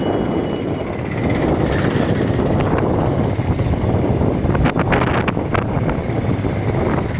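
Wind blowing on the microphone of a phone on a moving motor scooter, over the scooter's engine and road noise. The wind grows stronger about a second in.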